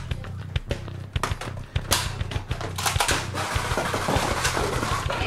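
Background music with a steady bass line and a quick run of drum hits.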